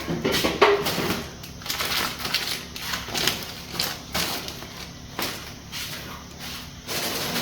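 Plastic grocery packaging crinkling and rustling in irregular short bursts as items are handled and unpacked.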